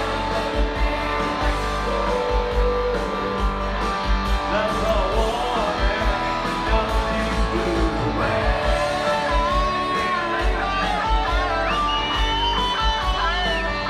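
A live country band playing through the PA, heard from the crowd: guitars over a steady drum beat, with a lead line coming in about halfway through.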